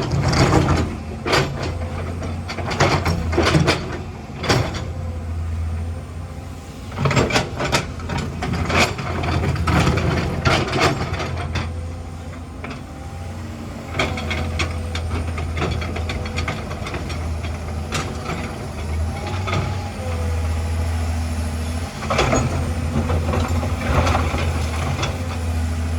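Heavy diesel excavator engine running steadily with a low drone, over repeated sharp metallic clanks and rattles, thickest in the first half and again near the end.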